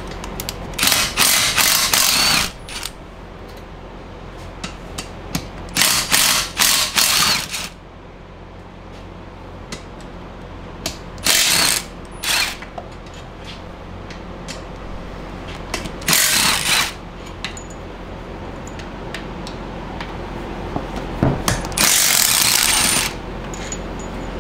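Ratchet wrench clicking in five short bursts, a second or two each, as the E12 Torx rear case bolts of a manual transmission case are run out one after another.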